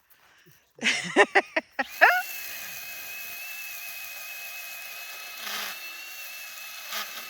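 Small battery-powered Milwaukee pruning chainsaw blipped several times in quick succession, then spinning up and held running with a steady high whine.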